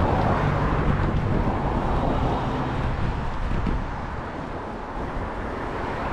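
Wind rushing over the microphone and road noise from a bicycle riding on a wet road, easing off about four seconds in.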